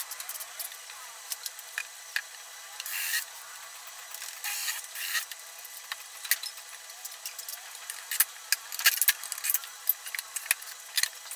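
UV-sheet MDF panels being handled and fitted together: scattered sharp knocks and clicks, thickest in the last few seconds, with two short scraping rubs a few seconds in.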